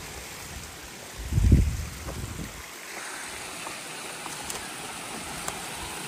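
Waterfall running full, a steady rush of water, with a brief low rumble about a second and a half in.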